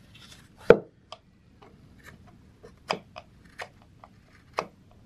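Carving knife taking short slicing cuts along the rim of a green black walnut bowl: crisp irregular snicks, the loudest about a second in, then several more, a second or so apart. These are light finishing cuts.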